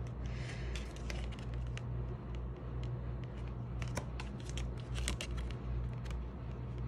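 Golden Universal Tarot cards being handled and turned over one at a time: soft sliding and rustling with scattered light clicks of the card stock, over a steady low hum.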